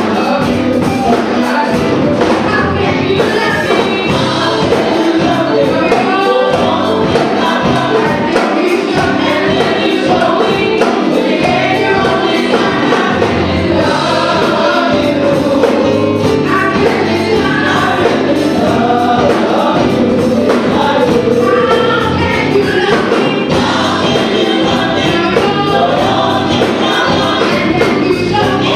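Gospel choir singing with a live band, a steady beat of drums under the voices.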